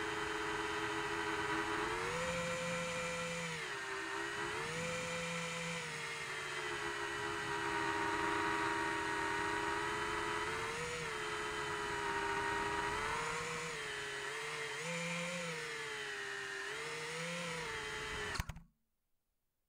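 Motors and propellers of a 5-inch FPV quadcopter whining in flight, the pitch swelling up and back down several times with the throttle. The sound cuts off suddenly near the end.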